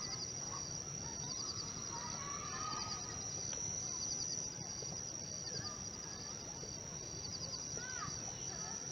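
Wild forest ambience: a steady high-pitched insect drone, a short insect chirp repeating about once a second, and scattered bird calls.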